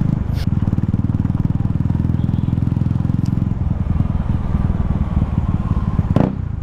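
KTM Duke 390's single-cylinder engine running through an open pipe at steady low revs, a fast, even beat with no revving. A short click about half a second in and another near the end.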